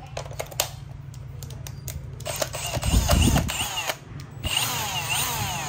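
Milwaukee M18 brushless hammer drill: a few clicks, then about two seconds in the motor starts and its whine rises and falls over and over as the speed changes, with a low thud about three seconds in. The motor stops briefly near four seconds and then runs again, still rising and falling.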